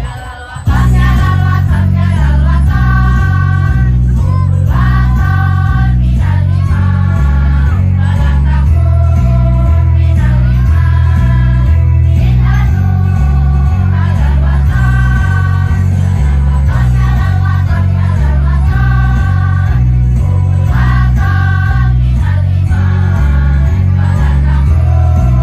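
Student choir singing together over loud accompaniment with a heavy, pulsing bass line. The sound dips briefly right at the start, then the singing runs continuously.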